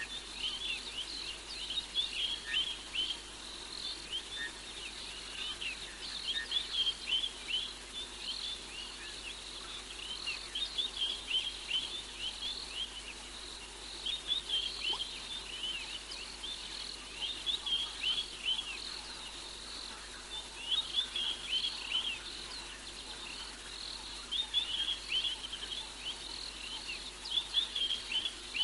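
Nocturnal animal calls: rapid high chirps in bursts of a second or two, repeating every few seconds, over a faint steady hiss.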